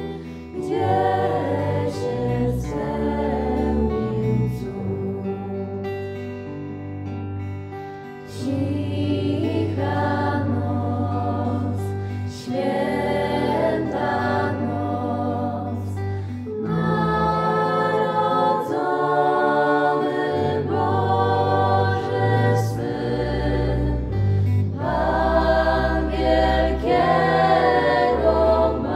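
Music: a group of voices singing held notes over instrumental backing with a sustained bass line.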